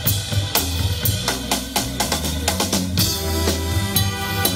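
Live jazz band playing: a drum kit keeps a steady beat with bass drum, snare and cymbal under saxophones and trumpet.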